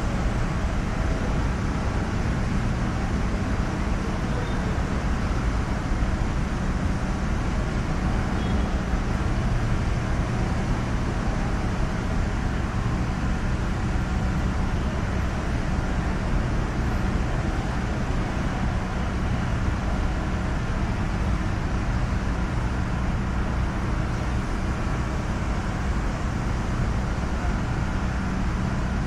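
Steady road traffic noise: a continuous low rumble with no distinct events.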